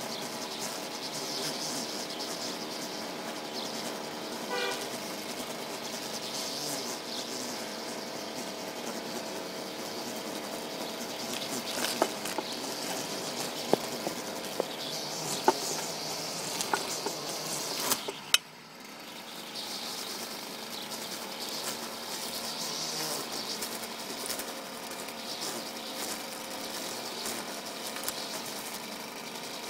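Petrol string trimmer running steadily at working speed, with a few sharp ticks around the middle. About 18 seconds in the engine briefly drops off and then picks up again.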